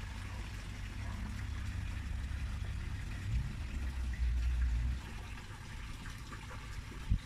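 Steady low rumble with a light hiss, louder for the first five seconds and then dropping. Near the end a cleaver knocks once on a wooden chopping board while slicing raw chicken.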